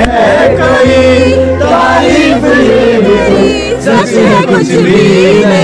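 A song playing: a sung melody over a steady bass line.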